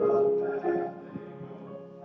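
Instrumental accompaniment of a congregational hymn between sung lines: held notes that fade away through the second half.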